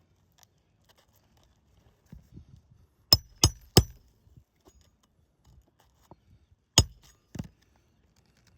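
Hammer striking roofing nails into asphalt shingles during a shingle repair: three quick sharp blows with a metallic ring about three seconds in, then one more hard blow and a lighter one a few seconds later, with faint rustling of shingles and feet between them.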